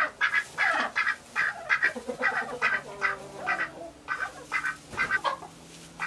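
White domestic ducks quacking: a rapid, uneven run of short quacks, about three a second, falling quiet in the last second.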